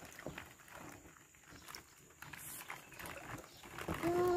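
Faint clicks and rustles of plastic play-pit balls and water stirred by hands searching in a ball-filled paddling pool. Near the end a child lets out a short drawn-out vocal sound.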